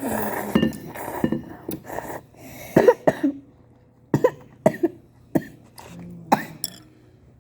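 A person coughing in a series of short, sharp coughs, preceded by a noisy rush of breath or slurping in the first second.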